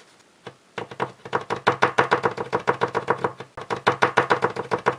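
Glue pen's valve tip jabbed rapidly against paper on a tabletop to prime it so the glue starts to flow: a fast run of clicking knocks, about five or six a second, starting about a second in.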